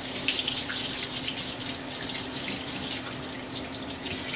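Tap water running steadily into a kitchen sink, with a faint steady hum underneath.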